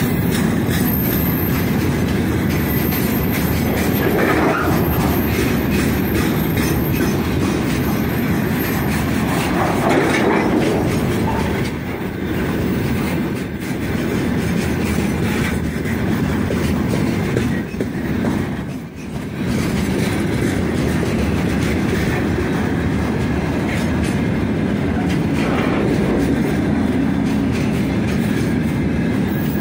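Freight train's open gondola wagons rolling past close by: a steady rolling rumble with rapid clicking of wheels over the rails, easing briefly about nineteen seconds in.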